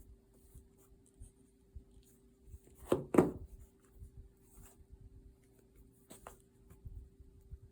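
Potholder loops being woven across a traditional loom: quiet scratchy rubbing of the weaving hook and fabric loops, with a couple of soft knocks about three seconds in.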